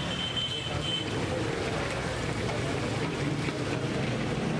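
Fish frying in a large karahi of hot oil, a steady sizzle, over a low steady rumble and background voices. A brief high whistle-like tone sounds in the first second.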